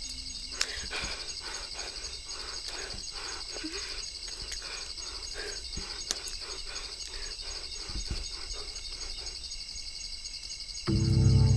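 Steady, high, pulsing chorus of night insects, over a run of soft rhythmic rustling strokes, about three a second, that stop shortly before the end. Low droning film music comes in near the end.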